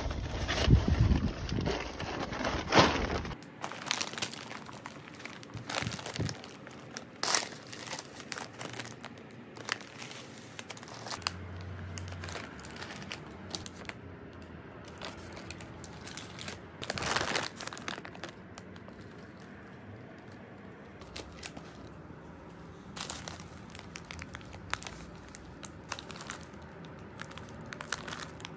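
Foil and plastic snack packets crinkling and rustling as they are picked up, turned over and set down, with a few sharper crackles. A low outdoor rumble fills the first few seconds.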